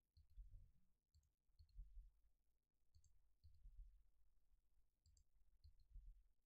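Near silence with faint computer mouse clicks and keyboard taps, a handful of short clicks at irregular intervals, over a faint low rumble.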